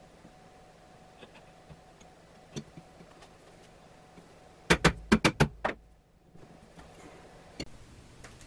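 An aluminum plate being handled and seated on an MDF fixture: a few faint taps, then a quick run of about six sharp knocks about five seconds in, and one more click near the end.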